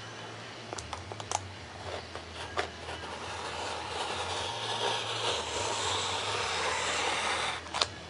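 Razor knife cutting foam board along a ruler: a few light clicks as the blade and ruler are set, then a long scratchy drag of the blade through the board in the second half, over a steady low hum.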